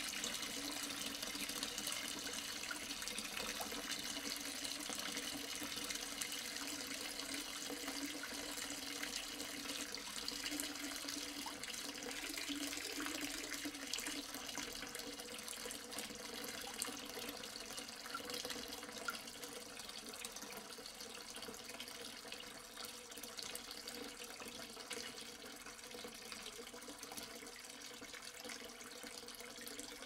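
Water pouring steadily into a half-full sink, a continuous splashing rush into standing water. It grows gradually quieter over the second half.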